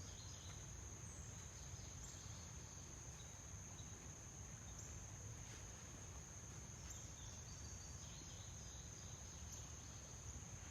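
A steady high-pitched insect trill, like crickets, runs without a break over a low rumble, with a few faint chirps now and then.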